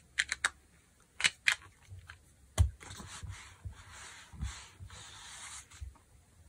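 Sharp clicks and taps of a stamp-positioning tool and ink pad being handled, then a few seconds of soft scraping or rubbing as the silicone stamp is inked and pressed onto fabric for a second impression.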